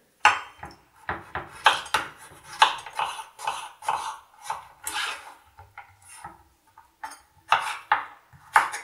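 Kitchen knife slicing and dicing a courgette on a wooden cutting board: irregular knocks of the blade hitting the board, about two a second, with a short lull about six seconds in.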